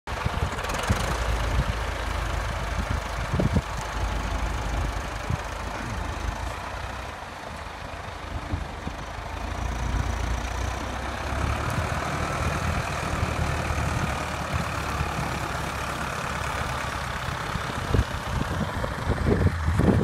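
Case 856XL tractor's six-cylinder diesel engine running steadily under load as it pulls a three-furrow reversible plough through the soil. It is fainter around the middle and louder near the end as the tractor comes close.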